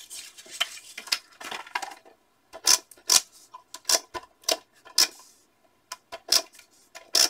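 Paper being handled, then a handheld adhesive tape runner pressed along the back of a paper strip, giving a string of sharp, uneven clicks with soft paper rustle between them.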